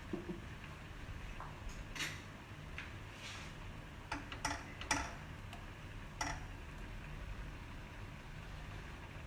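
Spoon tapping and clinking against a cooking pan, a scatter of short sharp clicks, while butter and oil are put in to melt, over a low steady hum.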